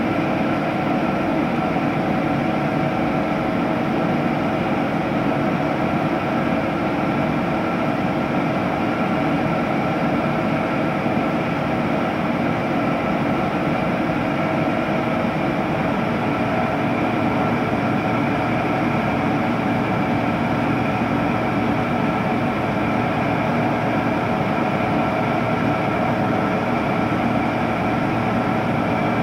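A steady machine drone with several held tones in it, unchanging throughout.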